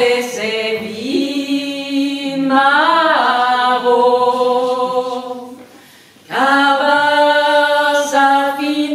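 Two women singing unaccompanied, a traditional Breton song in the Breton language, with long held notes. There is a brief breath pause about six seconds in before the voices come back in.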